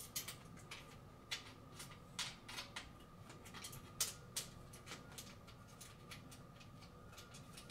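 Faint, irregular small clicks and light metallic ticks of metal wing nuts being threaded by hand onto the studs of a billiard light's frame, the sharpest click about four seconds in.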